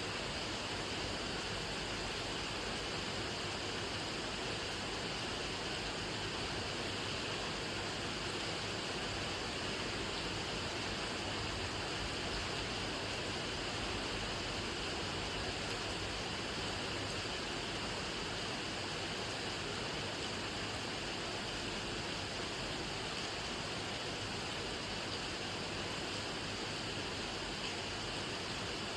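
Steady rainfall: an even, unbroken hiss of rain, with no single drops standing out.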